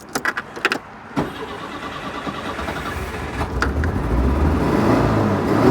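Citroën GSA's air-cooled flat-four being started: a few clicks, then the engine turns over and catches, its sound growing steadily louder with a deepening rumble as it picks up. It is a hard start on damp ignition after a wash, with the HT leads just sprayed with water dispersant.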